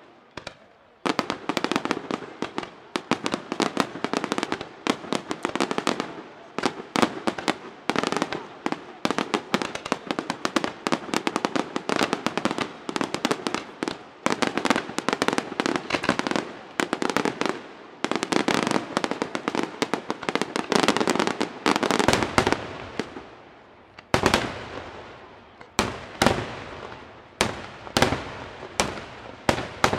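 Daytime fireworks: a dense, rapid barrage of bangs and crackles starts about a second in, then thins near the end into separate loud reports about half a second to a second apart.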